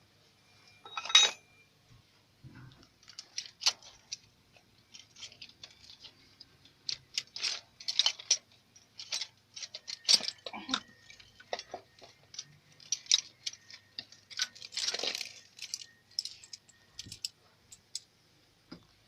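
Metal hand tools and engine parts clinking and clattering in irregular knocks during removal of a fuel injection pump, with one sharp metallic clank about a second in.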